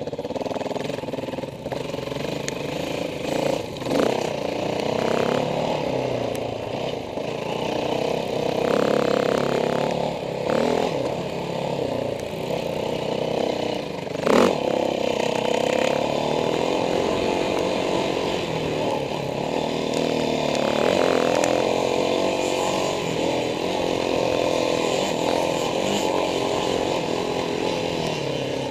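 Dirt bike engine running on a motocross track, its pitch rising and falling as the throttle opens and closes through the turns and jumps, with a sharp knock about halfway through.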